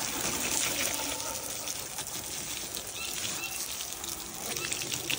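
A strong water jet sprays onto wooden deck boards with a steady rushing spray noise, blasting grime off the planks.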